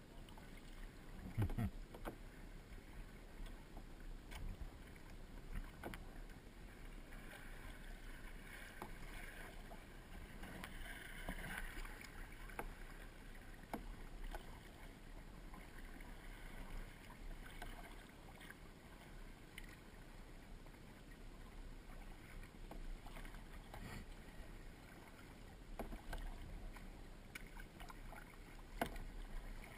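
Kayak paddling: paddle strokes splashing in the water, with scattered light knocks and a low thump near the start.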